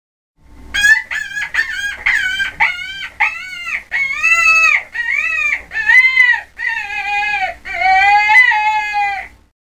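Rabbit squealing: more than a dozen high-pitched squeals in quick succession, each rising then falling in pitch, the later ones longer and lower.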